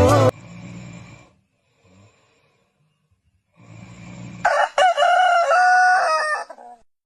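A rooster crowing once, one loud call about two seconds long that rises and then holds in steps, starting past the middle.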